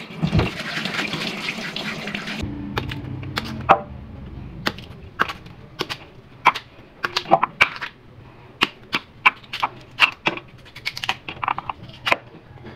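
Tap water running over cassava roots in a stainless-steel sink, which stops after about two seconds. Then comes a quick run of sharp clicks and snaps, a few a second, as the thick cassava skin is peeled and pieces break off and drop onto the steel.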